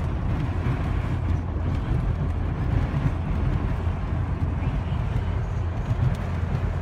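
Steady low rumble of a vehicle driving at speed, engine and tyre noise heard from inside the cabin.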